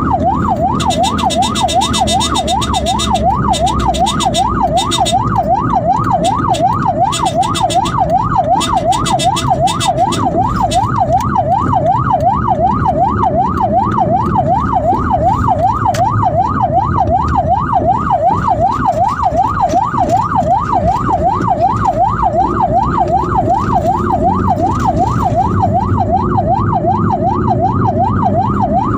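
Electronic emergency siren on a fast yelp, sweeping quickly up and down about three times a second without a break, over a steady rumble of engine and road noise. Bursts of high crackle come and go during the first ten seconds or so.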